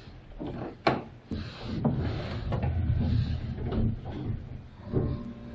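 Elevator car after a floor button is pressed: a sharp click about a second in, then a few seconds of rumbling as the doors slide shut, and a knock near the end followed by a steady hum starting up.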